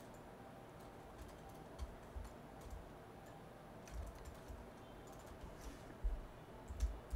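Faint, scattered computer keyboard and mouse clicks, with a few low thumps against the desk, mostly in the second half.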